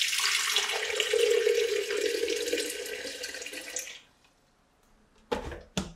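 Water poured from a jug into a glass electric kettle, a steady splashing pour lasting about four seconds. Two short knocks follow near the end.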